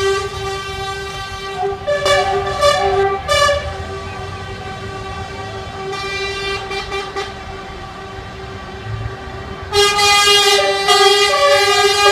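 Truck air horns sounding: one horn note held steady, with short extra blasts joining at a few points and several horns sounding loudly together near the end.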